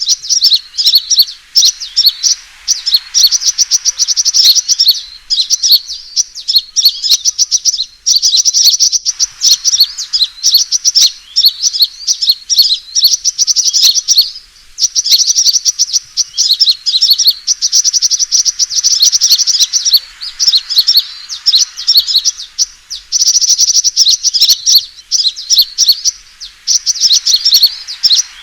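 Sunbird fighting call played as a lure: rapid, high, loud chirping trills in phrases a few seconds long, with short breaks between phrases.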